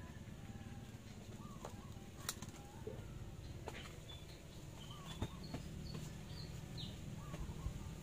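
Faint bird calls: a short call that rises and falls, repeated about every three seconds, with a few high chirps in the middle. A few light clicks come from the wire being handled on the bonsai branches.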